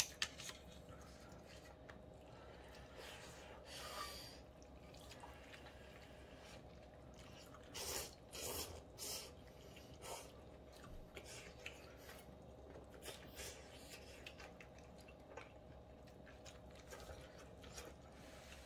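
Faint eating sounds: quiet chewing and scattered small clicks, over a steady low hum of room tone.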